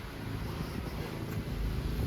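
Wind buffeting the microphone as a low rumble over a steady hiss, the rumble growing stronger about one and a half seconds in.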